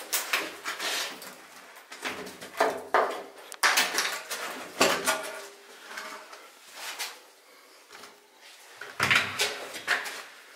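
Irregular knocks, scrapes and clattering of a door and loose wood being handled and shifted, in a small echoing room.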